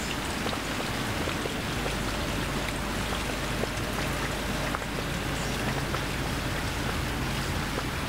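Steady outdoor ambience: an even hiss with a faint low hum beneath it and scattered small ticks.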